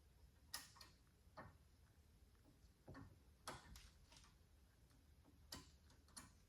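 Faint metallic clicks of piston rings being slid onto a piston by hand: about seven light ticks at irregular intervals.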